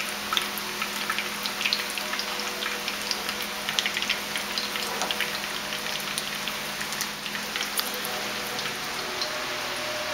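Panko-breaded, nori-wrapped ahi tuna frying in hot oil in a pan: a steady sizzle of many small crackling pops.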